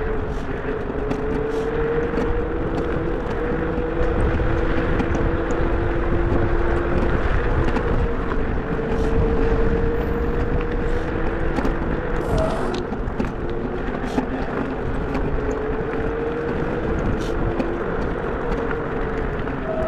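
A car driving: steady road noise with a low engine hum that drifts slowly up and down in pitch.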